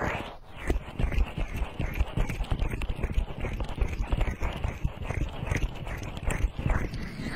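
Fingers rubbing quickly over the silicone ears of a binaural microphone, right at the mic: a dense, fast run of low, muffled strokes.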